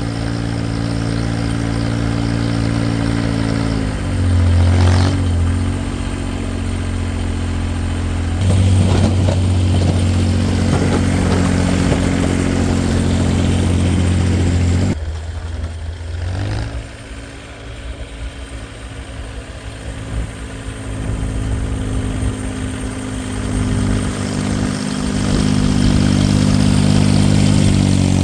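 Farmall Cub Lo-Boy tractor's small four-cylinder engine running, its speed dropping and picking back up several times, with a quieter, lower stretch in the middle.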